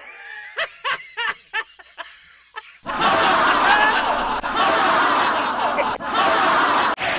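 A cartoon character laughing with about seven short 'ha' bursts. About three seconds in, a much louder studio audience laugh track starts and keeps going.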